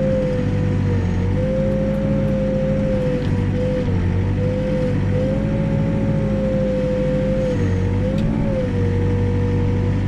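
Backhoe's diesel engine running steadily at working revs as the arm digs a footing trench, its pitch dipping briefly and recovering a few times.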